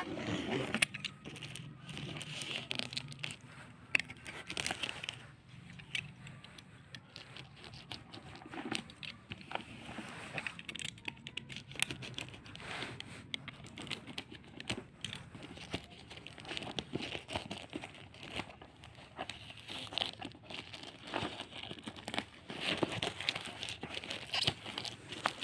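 Packaging being crinkled and torn open during an unboxing, with many scattered short clicks and handling noises.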